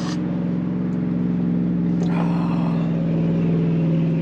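A motor vehicle driving past along the beach at speed, its engine holding a steady pitch and growing louder as it nears.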